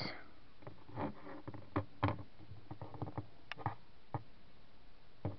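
Scattered light taps and scuffs of handling, as plastic toy figures and the camera are moved about by hand.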